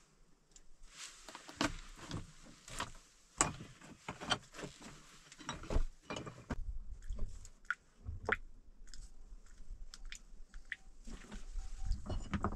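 Loose stones clinking, knocking and scraping as dry stones are handled and set in place, with irregular sharp knocks and gritty crunches.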